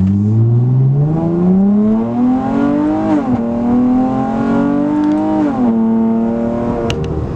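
2018 Dodge Challenger SXT Plus's 3.6-litre V6, breathing through a newly fitted cold air intake, accelerating hard in a 0 to 60 run: the engine note climbs, drops at an upshift about three seconds in, climbs again and drops at a second upshift near six seconds, then holds steady.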